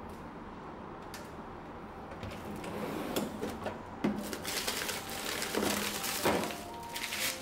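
A freezer drawer pulled out, then frozen packs in plastic bags crinkling and knocking together as a hand rummages through them, with a few sharp knocks.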